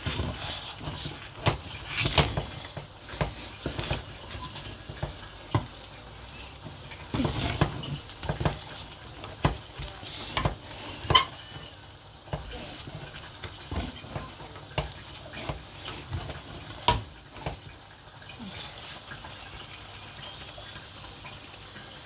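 Kitchenware clatter: a spoon knocking and scraping against metal pots and dishes in irregular sharp clinks and knocks.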